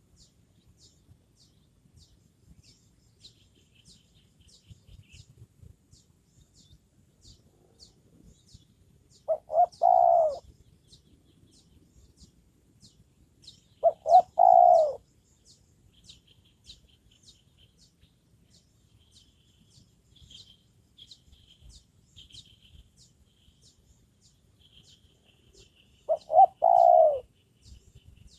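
Spotted dove cooing three times, each phrase a couple of short notes followed by a longer falling note. A faint high ticking runs behind it, about twice a second.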